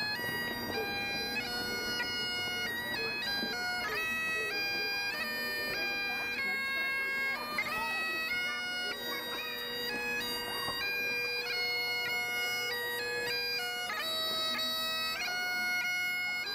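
Bagpipe music: a melody of held notes stepping up and down over a steady drone.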